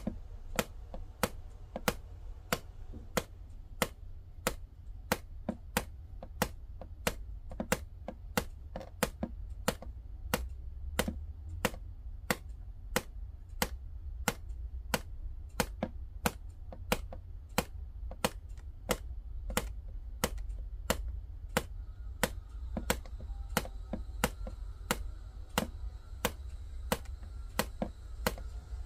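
Light, sharp clicks repeating evenly, a little under two a second, over a steady low rumble.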